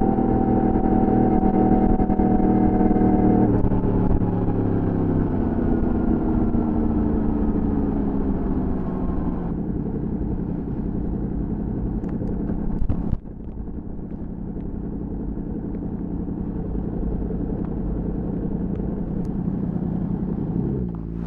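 Sport motorcycle engine heard from the rider's seat, slowing down: its pitch falls in several steps as it is shifted down. About halfway through there is a brief knock, after which it runs lower and quieter at near idle, then rises briefly at the very end.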